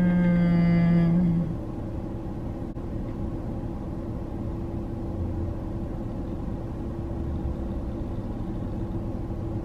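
Inside a stopped car, with the car's low rumble and a constant hum. A loud, steady, low-pitched tone with many overtones is held for about the first second and a half, then cuts off.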